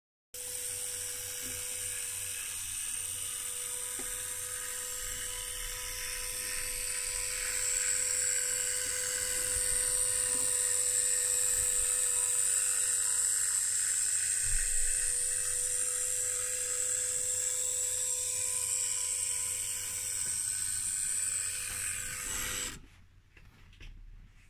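Tiny electric motor and gearing of an H0f narrow-gauge model locomotive running along the track: a steady high-pitched whine with a steady lower tone beneath it, cutting off suddenly near the end.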